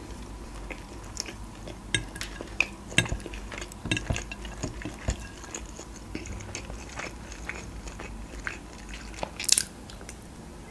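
A person chewing soft macaroni with minced meat, with irregular small mouth clicks and a fork now and then clinking against the plate; one sharper clink or scrape near the end.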